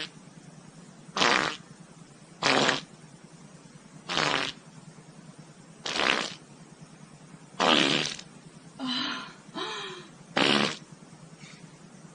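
A series of about eight short farts, roughly one every second and a half, each under half a second long. A few near the end are buzzier, with a pitched tone, one of them rising.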